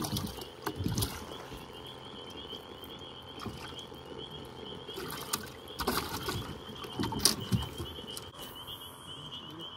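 A chorus of frogs calling in a steady, high, rapid trill, with scattered knocks and rustles of handling in the boat.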